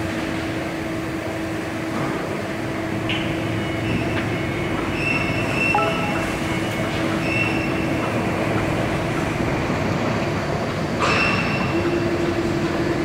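Hydraulic CNC press brake running with a steady machine hum. Short high-pitched whines come and go over it, the loudest about eleven seconds in.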